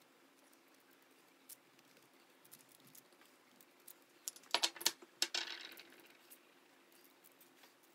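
Metal tin of nigella seeds being picked up and opened: a quick run of sharp metallic clinks about four and a half seconds in, then a short rattle. Before it, faint soft taps of a silicone pastry brush dabbing egg yolk onto dough.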